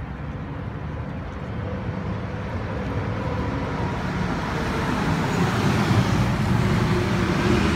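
Steady road traffic rumble, swelling louder through the second half as a vehicle draws nearer.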